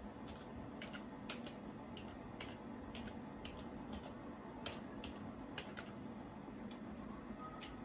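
Faint typing on a computer keyboard: irregular key clicks as a search query is typed.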